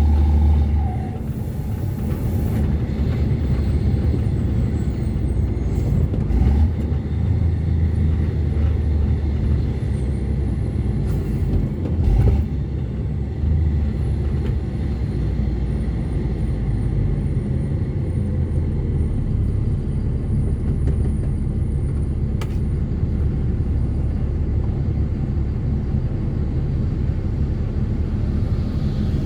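Ford Cargo 2428 truck's diesel engine running under way, heard from inside the cab as a steady low drone, with a brief hiss about two seconds in and a few short knocks and rattles.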